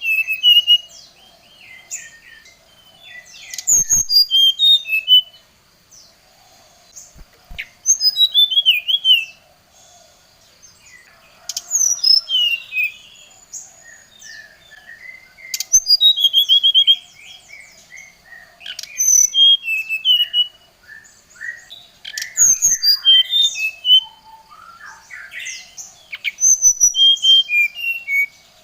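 Brown-chested jungle flycatcher (sikatan rimba dada coklat) singing energetic bursts of rapid, high chirps and whistled slurs, one burst about every three to four seconds. This is the aggressive 'gacor' lure song used to provoke rival birds. A faint steady buzz runs underneath, with a few sharp clicks.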